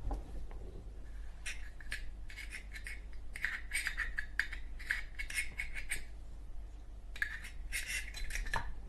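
Scratchy rubbing and scraping as a rayon ball is pushed into a Zippo lighter's metal insert, in two spells of quick small strokes.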